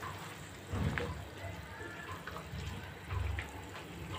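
Watery curry sloshing and bubbling in a nonstick pan as a silicone spatula stirs it, with scattered light clicks and two low thumps, about a second in and near the end.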